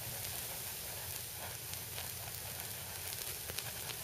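Fine steel wool burning on a wire as it is whirled in circles: a steady sizzling hiss of sparks, with scattered sharp crackles throughout.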